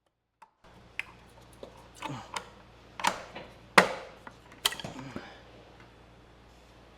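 A hand tool knocking and prying at the silicone-sealed valve cover of a Briggs & Stratton Intek single-cylinder engine, working it loose: a string of sharp metallic knocks and scrapes, loudest about four seconds in.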